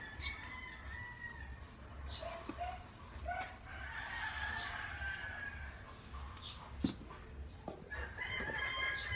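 Rooster crowing in long drawn-out calls: one trails off just after the start, another comes around the middle, and a third begins near the end. Short bird chirps come in between.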